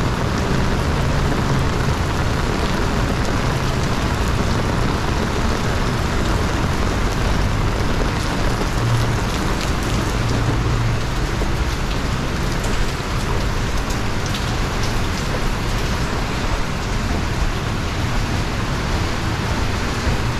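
Outdoor city street ambience: a steady, even rushing hiss with a low engine hum underneath and faint scattered ticks.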